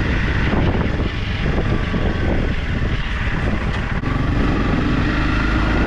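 Motorcycle engine running steadily while riding along a dirt trail.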